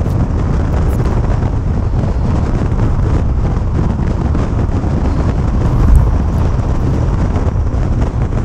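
Steady low rumble inside the cab of a 2015 Ford F-350 dually diesel pickup on the move: road, engine and wind noise blended together. A brief louder low thump about six seconds in.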